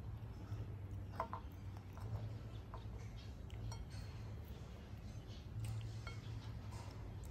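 Light clicks and cracks of nut shells being peeled and nuts clinking in a glass bowl, over a steady low hum. A brief high squeak comes about a second in.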